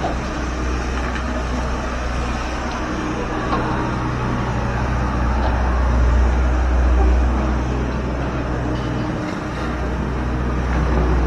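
Excavator's diesel engine running steadily, with a brief dip about nine seconds in, over the even hiss of falling rain.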